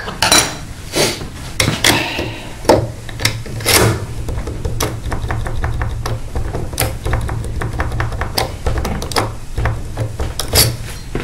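A key blank being wiggled in an Asec euro profile cylinder lock to make the pins mark it for impressioning: a run of small metallic clicks and taps, after a few louder handling knocks and scrapes in the first few seconds.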